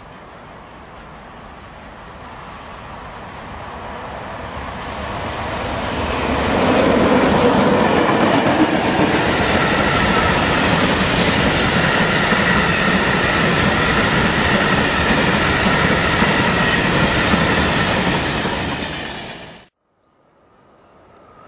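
Freight train of covered hopper wagons passing close by on the rails. The noise swells over the first several seconds into a loud, steady running noise of wheels on track with a faint high ringing over it, then cuts off suddenly near the end.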